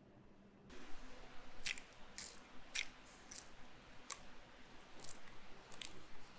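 Paper tissue crinkling and rustling in short bursts, roughly one every half second, as a small black fishing-rod part is rubbed clean with it by hand.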